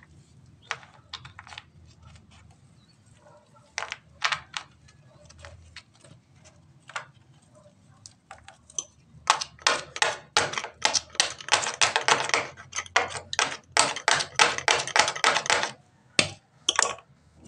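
A tool scraping and clicking through cement mortar being mixed. It starts with a few scattered strokes, then from about nine seconds in becomes a fast run of sharp scrapes, about five a second.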